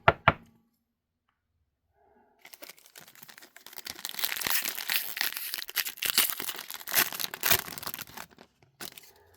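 Foil wrapper of a 2024 Panini Select WNBA trading-card pack being torn open and crinkled for about six seconds. Two sharp knocks come right at the start and a single click near the end.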